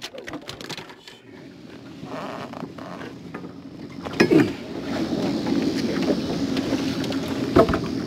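Handling noise on a boat deck while a freshly landed black crappie is picked up: scattered knocks and rustling, a loud thump about four seconds in and another sharp knock near the end. A steady low hum sets in from about five seconds on.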